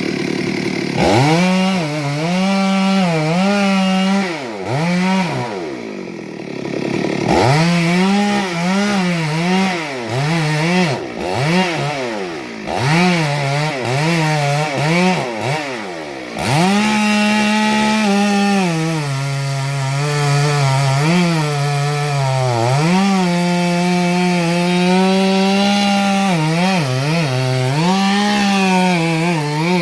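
Two-stroke chainsaw cutting into a tree, its engine note rising and falling again and again as the throttle is worked and the bar bites into the wood, with a couple of short drops in speed.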